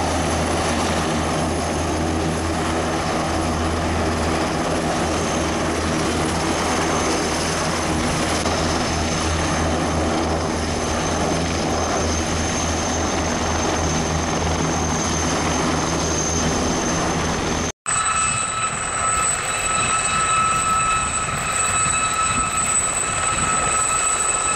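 Aircraft engines running steadily, with a low pulsing drone under several steady pitched tones. About three-quarters of the way in the sound cuts off abruptly, then resumes as a different steady, high-pitched whine of several held tones.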